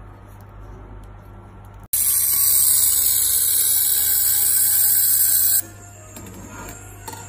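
Handheld fiber laser welder welding a stainless steel pot seam. A loud, steady, high-pitched hiss and whine starts abruptly about two seconds in and cuts off sharply about three and a half seconds later, with a low steady hum before and after.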